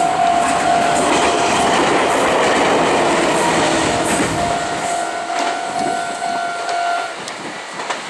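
Meitetsu 6800 series electric train passing over a level crossing, its wheel and rail noise fading after about five seconds. The crossing's electronic warning bell rings with a steady tone and stops about seven seconds in.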